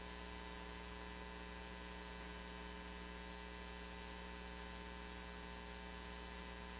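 Steady low electrical mains hum with a faint buzz of higher overtones over a soft hiss, unchanging throughout.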